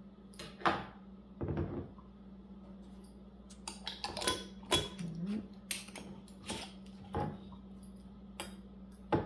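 Kitchenware being handled: about a dozen scattered clinks and knocks, as of utensils and jars set down and moved, over a steady low hum.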